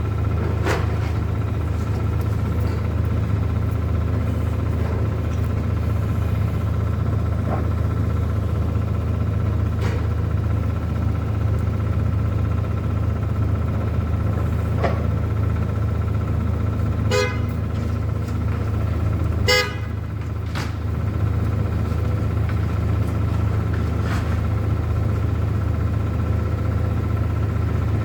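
Two short vehicle horn toots about two seconds apart over a steady low street rumble.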